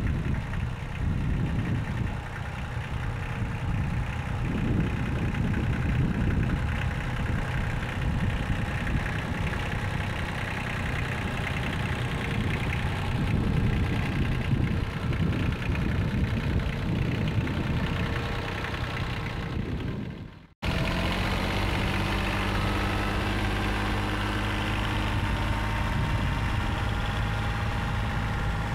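Kubota compact tractor's engine running steadily under load as it pulls a middle buster through the soil to open a planting furrow. For the first two-thirds, wind buffets the microphone with a low, gusty rumble. A short break about twenty seconds in, after which the engine sound is steadier and clearer.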